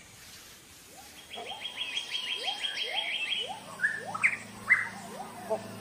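Forest birds calling: a fast trill of about six notes a second, short rising whistled notes about twice a second, and a few louder sharp calls a little past the middle.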